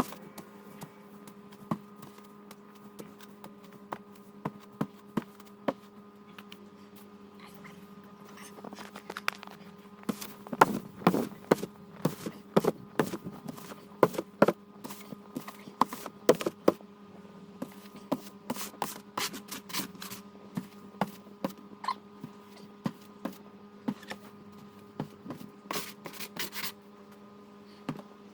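Irregular clicks, knocks and scrapes of hand work, busiest through the middle stretch, over a steady electrical hum.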